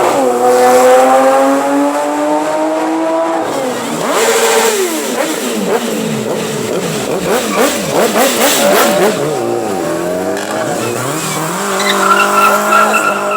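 Loud modified car exhausts accelerating past. One engine note climbs steadily for about three and a half seconds and then drops. Several engine notes then overlap, rising and falling as cars pass, before one settles into a steady note near the end.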